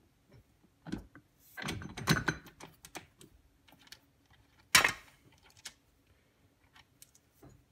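Metal clicks and clinks from the lathe's change gears and their fittings being handled by hand, with one louder sharp clack about five seconds in.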